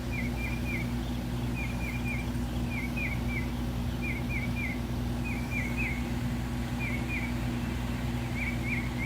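A bird calling in quick runs of three or four short, high, downward chirps, about one run a second, over a steady low hum.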